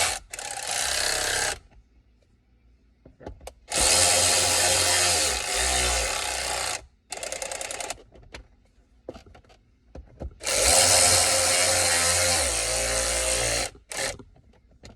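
Electric ratchet running in three bursts of a few seconds each, driving T20 Torx screws in to tighten them, with a short stretch of rapid clicking after the second burst.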